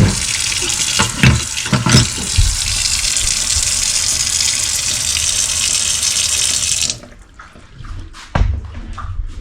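Kitchen tap running into the sink while dishes are washed, with a few clinks and knocks of dishes in the first couple of seconds. The tap is shut off suddenly about seven seconds in, and a single knock follows near the end.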